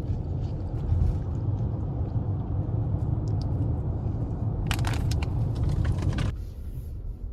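Steady low rumble of a vehicle on the move, with a quick cluster of clicks and rattles about five seconds in, after which the rumble drops suddenly.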